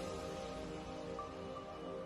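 Soft background music of held, sustained notes.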